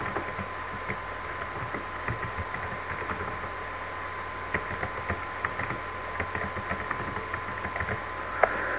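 Computer keyboard being typed on: light, irregular key clicks over a steady hiss and a faint steady high tone.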